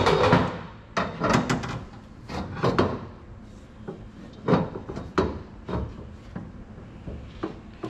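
Irregular knocks and clunks, several in quick clusters, as a bent metal tube is worked into place in a tube frame.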